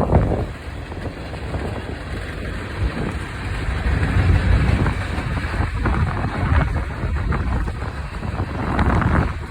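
Wind buffeting the microphone over the steady low rumble of a passing freight train.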